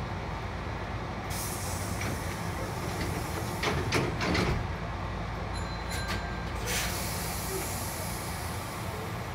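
Hankyu 5100 series electric train with a steady low hum and a hiss of compressed air from about a second in until past halfway. A few clunks in the middle of the hiss are the loudest moment.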